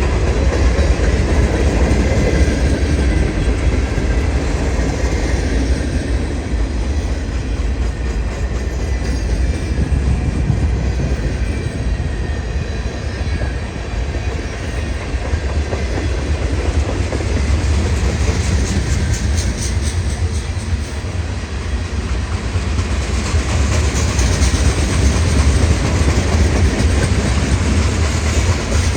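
Freight train rolling through a rail yard: railcar wheels clicking over rail joints over a steady, heavy low rumble.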